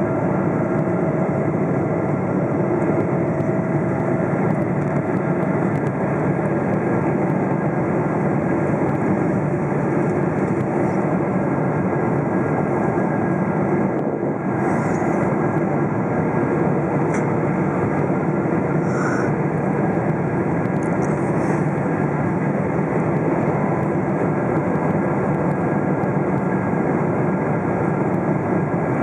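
Steady cabin noise inside a Boeing 777-300ER descending to land: its GE90 engines and the air rushing past the fuselage as one constant, even roar, dipping slightly about halfway through.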